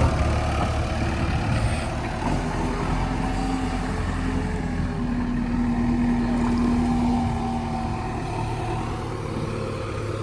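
Heavy diesel engine of earthmoving machinery running steadily under load, with a steady higher-pitched tone over it from about two seconds in until near the end.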